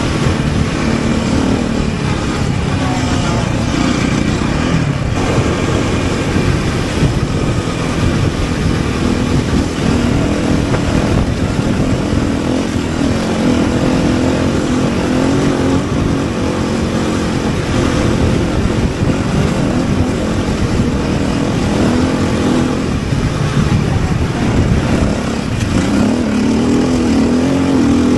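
Rally car engine running continuously under load over a steady rush of noise, its pitch shifting slightly with the throttle.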